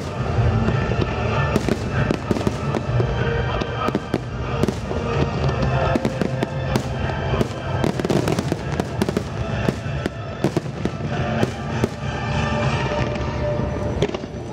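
Fireworks shells bursting in rapid succession, many sharp bangs and crackles with the densest volley in the middle, over music.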